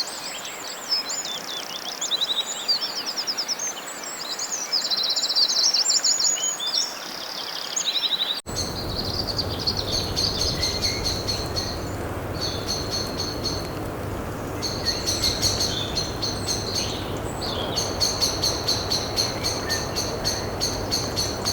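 Birdsong: varied high chirps and trills. About eight seconds in it cuts abruptly to a different recording of fast, evenly pulsed high trills in bouts of a second or two, separated by short pauses, over a steady background hiss.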